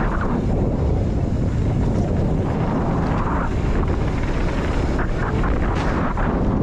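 Wind buffeting an action camera's microphone on a fast downhill mountain bike descent, a loud, steady low rumble mixed with tyre and trail noise, with a few scattered clicks and rattles from the bike.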